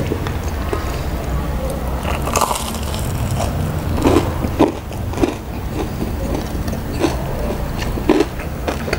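Close-miked crunching and chewing of crispy deep-fried tofu (tahu garing): the crackly batter breaks in sharp crunches, loudest about two and a half seconds in, again between four and five seconds, and near seven and eight seconds, over a low steady hum.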